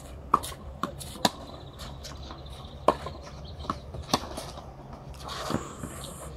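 Tennis rally on a clay court: sharp pops of racket strings striking the ball and the ball bouncing, about half a dozen spread over several seconds, with a short scuffing sound near the end.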